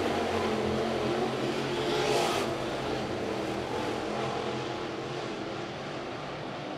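Dirt late model race cars with GM 604 crate V8 engines running at speed around a dirt oval. The engines swell loudest about two seconds in, then ease off a little toward the end.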